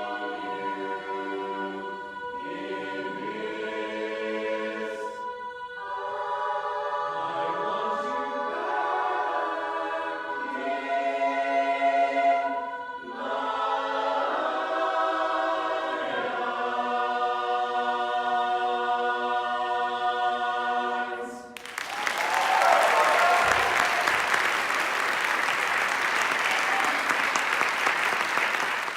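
Youth mixed barbershop chorus singing a cappella in close four-part harmony, closing on a long held chord, then audience applause from about three-quarters of the way through, which cuts off suddenly at the end.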